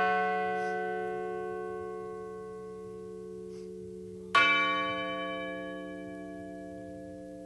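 A large memorial bell tolled in remembrance, its clear ringing tones slowly dying away from a strike just before. It is struck again about four seconds in and rings on, fading gradually.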